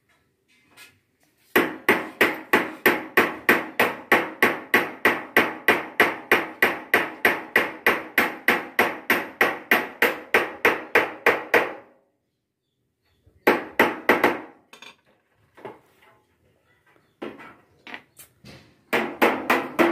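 A small hammer striking the seams of a curved sheet-metal dome section: a fast, even run of ringing metal blows, about four a second, lasting some ten seconds. After a pause there is a short quick flurry, then scattered taps, and the rapid hammering starts again near the end.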